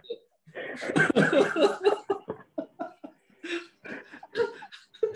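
Two men laughing over a video call, in short broken bursts.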